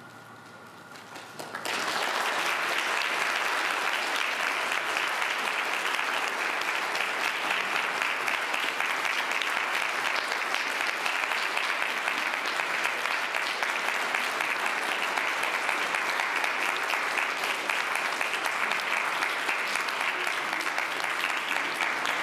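Audience applauding. It breaks out suddenly about a second and a half in, replacing a faint steady tone, and then keeps up at an even level.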